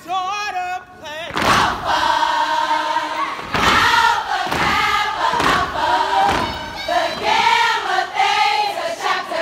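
A group of women singing together in unison, broken by several heavy foot stomps on the floor in the first two-thirds.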